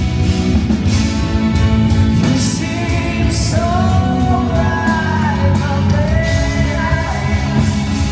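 Rock band playing live through a PA, with a sung melody line held and bending over drums, bass and guitar, in a large hall.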